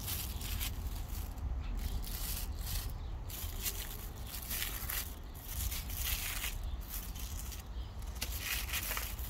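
Thin plastic grocery bag crinkling and rustling as peanut butter is smeared across it with a metal spoon, in uneven spells of a second or less, over a steady low rumble.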